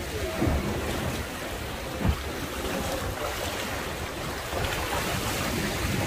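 Rushing, splashing water of river rapids around a passenger boat, with wind buffeting the microphone; a short knock about two seconds in.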